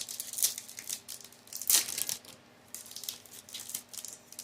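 Foil trading-card booster pack wrappers crinkling and crackling as they are handled and torn open, in irregular bursts with the loudest crackle a little under two seconds in.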